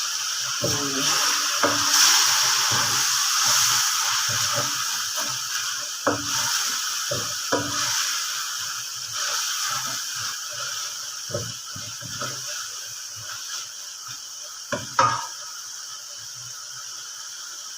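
Spice masala sizzling in hot oil in a pan while a spoon stirs it, scraping and knocking against the pan. The sizzle slowly dies down, and there is a louder clatter about 15 seconds in.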